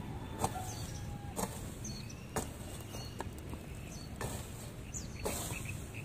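Garden hoe chopping into weedy soil, one sharp strike about every second.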